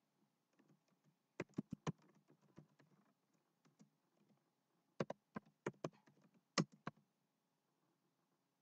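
Faint typing on a computer keyboard: a few sharp key clicks about a second and a half in, then a second short run of clicks from about five to seven seconds in.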